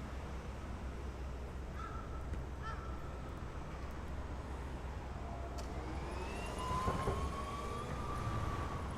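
A distant siren: a tone that rises from about five seconds in and then holds, over a steady low outdoor rumble. Two short calls come earlier and a single knock comes near the end.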